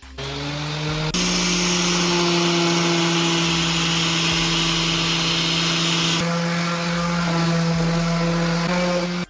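Electric power tool running steadily on a cricket bat, a motor hum under a hiss. The hum steps up in pitch and the hiss grows about a second in, as the tool meets the wood; the hiss eases a little around six seconds in.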